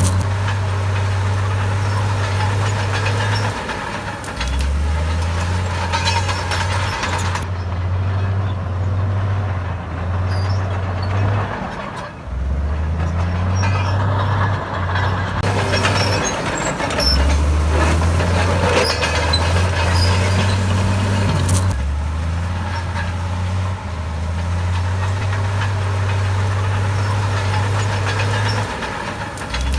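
Komatsu D68B bulldozer's diesel engine working under load. Its low engine note drops sharply and then picks back up again and again, every few seconds, as it pushes soil.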